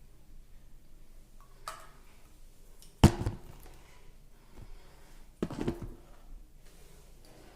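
Skincare product containers being handled: a faint click, then two sharp knocks, each with a brief hollow ring, about three and five and a half seconds in.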